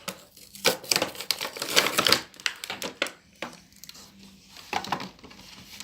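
Toy doll packaging being opened by hand: cardboard and plastic tearing, rustling and crinkling in a quick run of rips and scrapes that thins out after about two seconds.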